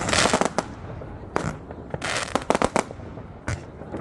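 New Year's Eve fireworks and firecrackers going off. A burst of crackling comes at the start, then a single sharp bang, a quick run of several bangs around the middle, and another bang near the end.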